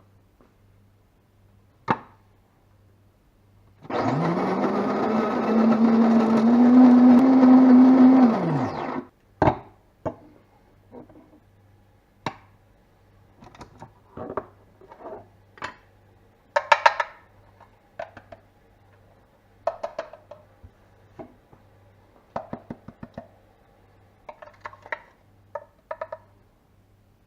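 Electric coffee grinder motor running for about five seconds as it grinds coffee beans, its pitch rising slightly before it spins down. It is followed by a series of knocks, taps and clinks.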